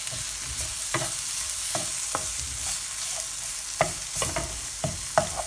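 Chopped onion and red capsicum frying in a pan with a steady sizzle, stirred so that a utensil knocks and scrapes against the pan every so often.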